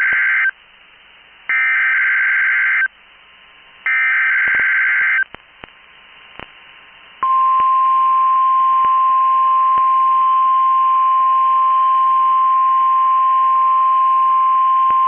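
NOAA Weather Radio SAME alert signal: it opens with the end of one burst of warbling digital header tones and two more bursts like it, each about a second long. About seven seconds in comes the steady 1050 Hz weather radio alert tone, which keeps sounding. The headers are data that tell receivers about the alert, and the tone sets off receivers, here for a weekly test.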